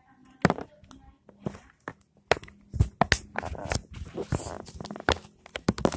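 Handling noise close to a phone's microphone: a string of irregular knocks, clicks and rubbing as the phone is moved about and covered.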